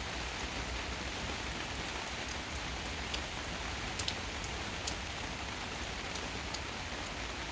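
Steady rain falling, with scattered individual drops ticking sharply on a nearby surface, a few louder ones around the middle.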